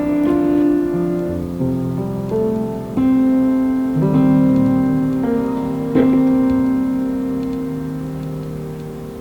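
Background piano music: slow, held chords, each struck and left to ring and fade before the next.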